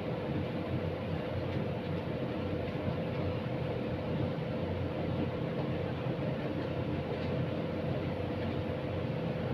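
Steady low rumbling noise with a constant hum, unchanging throughout, with no distinct events.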